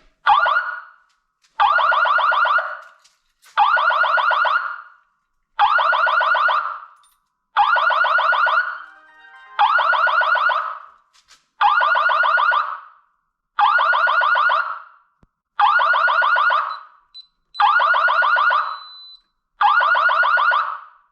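Fire alarm system in alarm, set off by its manual pull station being pulled. The alarm sounds in loud, evenly repeated blasts, each a bit over a second long, about one every two seconds.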